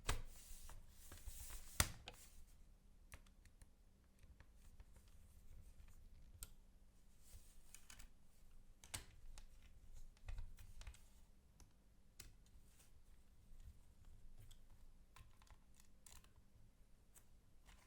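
Scattered faint clicks and taps of hands working on a Dell Latitude E7470 laptop as its bottom cover is put back on, with a sharper click and a short rustle about two seconds in.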